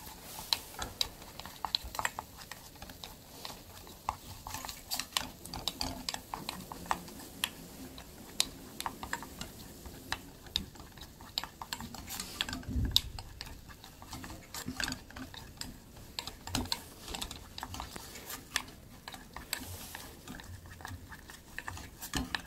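A wooden spoon stirring and scraping a thick tomato-ketchup vegetable and bacon filling in a small hammered metal saucepan, with irregular light taps of the spoon against the pan. The filling is being stir-fried down until it turns to a dry paste.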